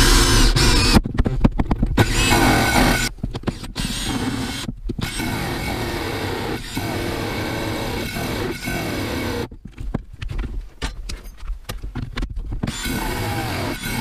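Cordless Makita drill driving a hole saw through the van floor, cutting the hole for a diesel parking heater. It runs loud and steady for the first few seconds, then carries on at a lower level with several brief stops and restarts, stuttering on and off near the end.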